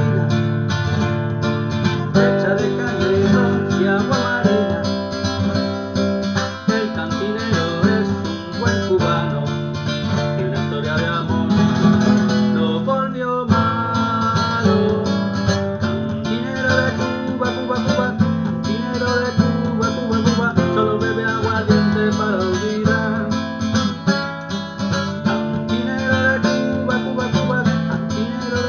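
Acoustic guitar playing an energetic rumba flamenca rhythm, with melody lines over a steady low part.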